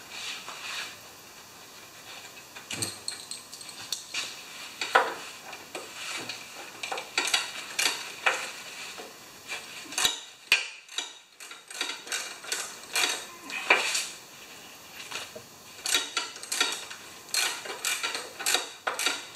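Hand tools and a bolt clinking and scraping against the metal of a lawn mower engine as the bolt is refitted: irregular metallic clicks, some sharper than others.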